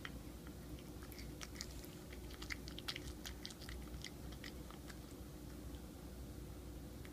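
Tabby cat chewing chunks of raw beef: a run of small quick clicks and smacks, busiest between about one and four seconds in.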